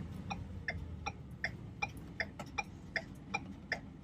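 A car's indicator relay clicking at an even pace, about two and a half ticks a second, as with hazard lights or a turn signal left on, over the low steady hum of the idling vehicle heard from inside the cabin.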